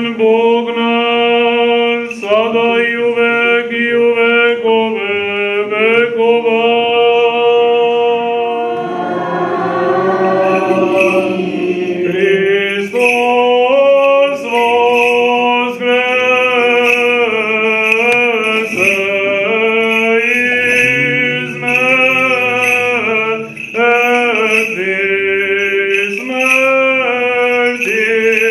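Choir singing a slow chant in long held notes, the voices moving in steps from one pitch to the next.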